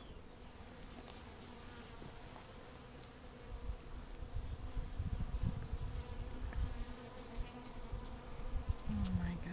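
Honeybees of an opened hive buzzing in a steady hum on a frame lifted out for inspection, with low rumbling noise from about three seconds in.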